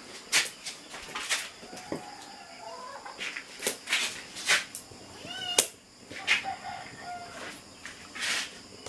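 Firewood crackling and popping in a clay wood-burning stove: sharp snaps every fraction of a second, the loudest about five and a half seconds in. Cats meow a few times in between.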